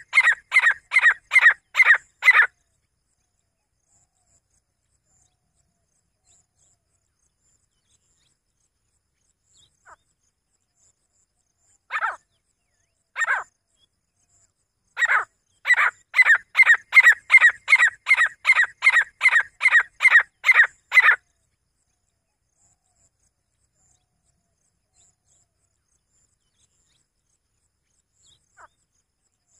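Grey francolin calling: a run of loud, high, evenly spaced notes at about three a second that stops a couple of seconds in, two single notes near the middle, then another run of about twenty notes lasting some six seconds.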